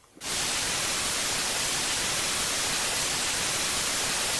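Television static: a steady, even hiss of white noise, the sound of a TV screen showing snow with no signal. It starts abruptly a moment in.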